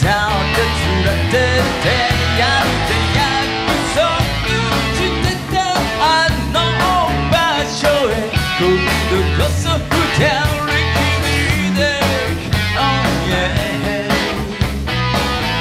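Live rock band playing, with drums, bass and electric guitar, and a man singing lead vocals.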